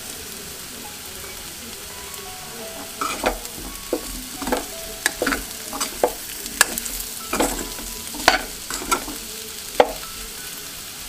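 Spiced boiled potatoes sizzling in oil in a kadhai as dried fenugreek leaves are added. From about three seconds in, a metal spoon scrapes and clinks against the pan about a dozen times as the potatoes are stirred.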